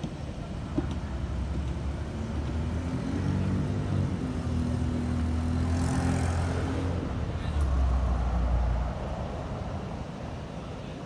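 Police car engine running as the car drives slowly past close by. Its sound builds to a peak about six seconds in and is followed by a brief low rumble. No siren.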